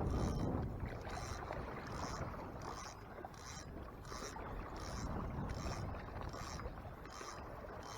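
Wind and water noise around a Hobie Mirage Tandem Island kayak moving at trolling speed, with a faint regular swish repeating about every half second.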